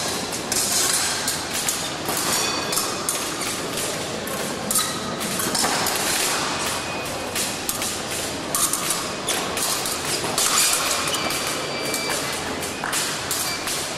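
Épée fencing on a metal piste: repeated thumps of footwork and short metallic clinks and rings of the blades meeting, over the steady hubbub of a large hall.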